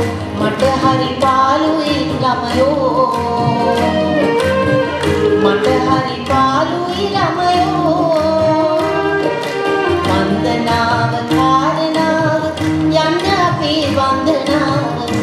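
A woman singing a Sinhala song live, accompanied by tabla, violin, keyboard and guitar, with the tabla keeping a steady beat.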